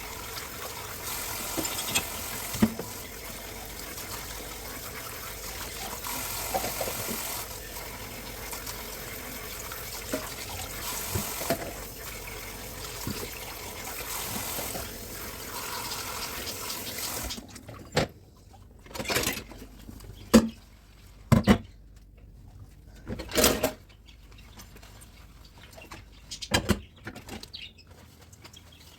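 Kitchen tap running into the sink while dishes are washed, with occasional knocks. The water is shut off suddenly about two-thirds of the way through, leaving scattered clinks and clatter of dishes being handled.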